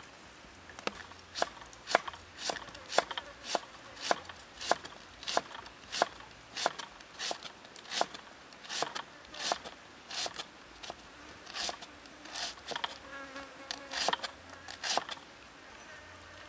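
Kitchen knife slicing a head of green cabbage into thin shreds on a wooden stump chopping board: a steady run of sharp knocks, about one and a half to two a second, as the blade hits the wood, stopping near the end.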